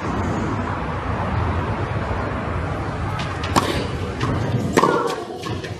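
Tennis ball struck by rackets in a rally on a clay court: sharp hits about three and a half seconds in, again a little before five seconds, and once more at the very end, over a steady rushing background noise.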